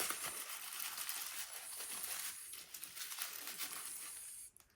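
Crinkling and rustling from wrapping being handled, which stops shortly before the end.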